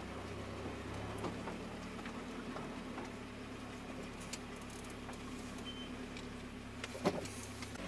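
GAZelle van's engine running at low speed, heard from inside the cab as a steady low hum, with light clicks and rattles from the cab. A single sharper knock comes about seven seconds in.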